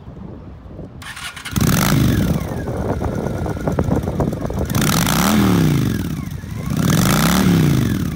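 2007 Honda Shadow Spirit 750's liquid-cooled V-twin with a Vance and Hines exhaust, started about a second in. It catches and runs, then is revved twice, the pitch rising and falling each time.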